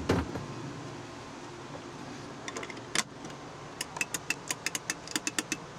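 Bennett trim tab rocker switch being pressed over and over: a knock at the start, a single click about three seconds in, then a quick run of sharp clicks, several a second, in the second half.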